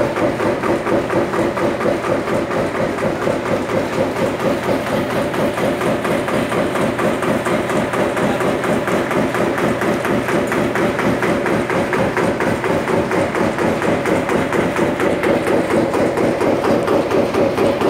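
Sawdust briquetting machine running, a continuous mechanical clatter with a fast, regular beat.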